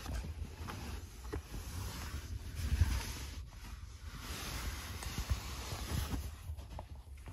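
Low rumble with soft rustles and small knocks: handling noise from a hand-held phone being moved while filming.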